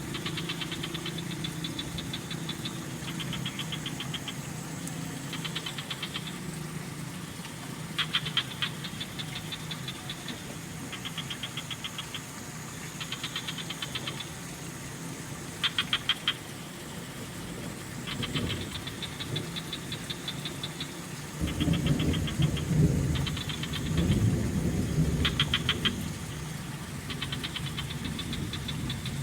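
Frogs calling in a chorus: short, rapid trains of clicking pulses, each about a second long, repeating every second or two over a steady low drone. A louder, deeper stretch of sound comes about three quarters of the way through.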